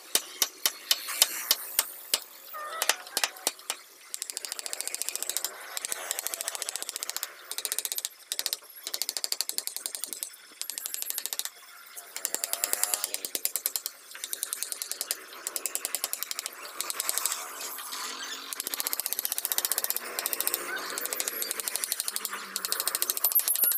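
Wooden mallet tapping a carving chisel into a wooden panel. A few sharp knocks a second at first, then long runs of fast, light taps with short pauses between them.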